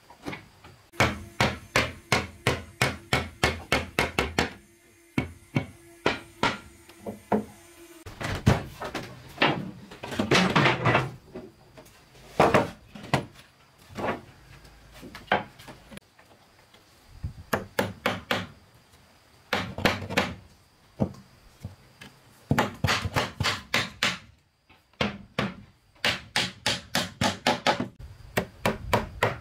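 Hammer striking wooden boards in runs of quick, even blows, about three or four a second, with short pauses between the runs.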